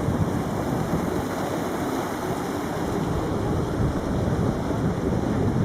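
Steady rushing of sea wind on the microphone, mixed with the wash of surf.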